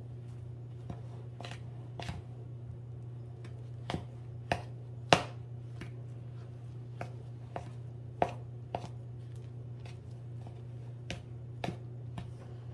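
A metal spoon knocking and scraping against the side of a mixing bowl while thick whipped topping, yogurt and cake mix are stirred together. It makes irregular light clicks, a few of them sharper, over a steady low hum.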